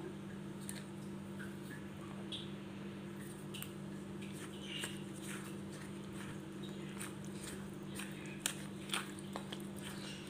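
Roasted semolina and curd being stirred together in a glass bowl into a thick idli batter: soft, wet squishing with a few light clicks, over a steady low hum.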